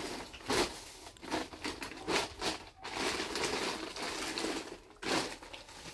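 Rustling and crinkling from something being handled: a run of short crackles, with a louder one about five seconds in.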